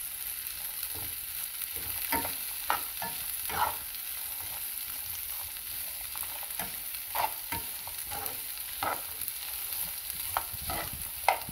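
Spatula scraping and turning tofu and shallots in a frying pan over a steady oil sizzle, in irregular strokes about every half-second to second. The aromatics are being stir-fried until fragrant.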